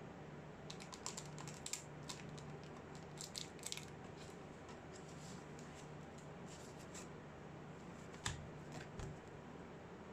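Plastic and paper packaging being handled: scattered soft clicks and rustles in clusters as a hard plastic tray is lifted out of foam and a paper card is pulled out, with one sharper knock a little after eight seconds and a dull thump just after.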